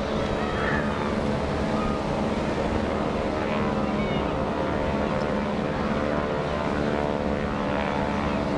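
The radial engine of a North American SNJ (T-6 Texan) warbird drones steadily as the plane flies past overhead. This is the engine-and-propeller sound of a Pratt & Whitney R-1340 nine-cylinder radial.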